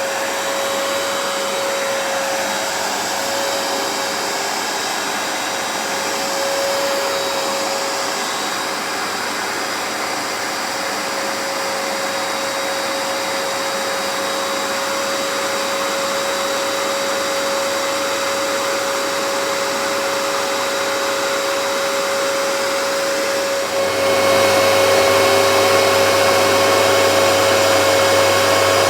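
Hoover PowerDash Pet carpet cleaner running, its motor giving a steady whine as it works over the carpet. About 24 seconds in the sound gets louder and a deeper hum joins it.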